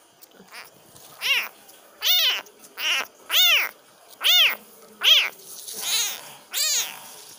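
A young kitten meowing over and over: about eight short, high meows, each rising then falling in pitch.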